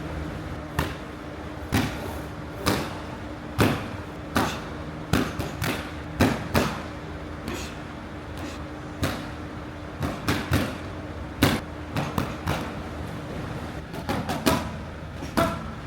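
Punches landing on boxing focus mitts: a string of sharp smacks at uneven spacing, some single, some in quick combinations of two or three.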